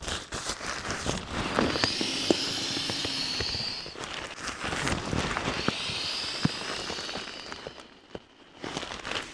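An inflatable sleeping pad being handled: two spells of rustling hiss, each a couple of seconds long, with scattered small clicks.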